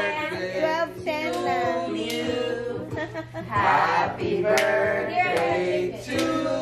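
People singing together, with a few hand claps.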